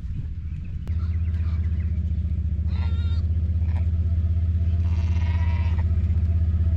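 Quad bike (four-wheeler) engine running and growing steadily louder as it approaches, with sheep bleating a few times over it, the longest call about five seconds in.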